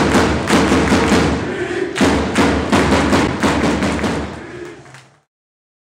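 Football supporters in the stand chanting over a steady beat of loud thuds. The sound fades and cuts off about five seconds in.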